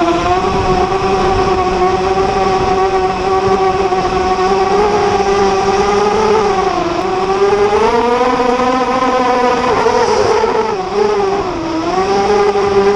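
Brushless motors and propellers of a ZMR250 racing quadcopter whining. The pitch rises and falls as the throttle changes, with sharp dips in the second half.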